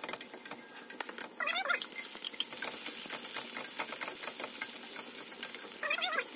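Chopped garlic and onion sizzling in hot oil in a stainless-steel pan, stirred with a wooden spoon that clicks and scrapes against the pan. Two brief wavering high-pitched cries come in, about a second and a half in and again near the end.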